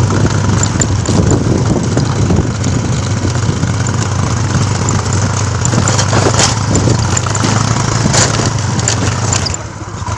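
Motorcycle engine running steadily, with a few sharp knocks and rattles about six and eight seconds in.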